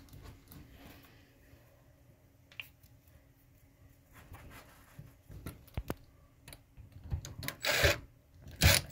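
Light rubbing and small clicks as a blind's plastic string tensioner and its cord are handled. Near the end, a cordless drill-driver runs in a few short, loud bursts, driving a screw through the tensioner into the wooden window trim.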